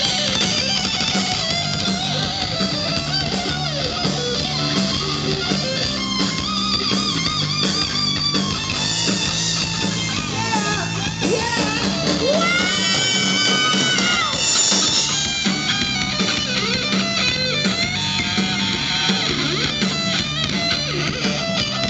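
Live rock band playing an instrumental break: electric guitar lead with bent, wavering notes and one long held note near the middle, over bass guitar and drums.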